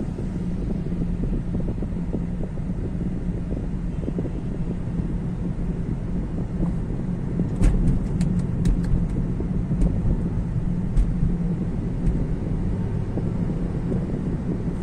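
Steady road and tyre rumble inside the cabin of a moving Toyota Prius Prime, with a low hum under it. A few short, sharp clicks come a little past the middle.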